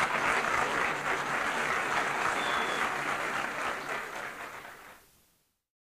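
Audience applauding, fading away about five seconds in.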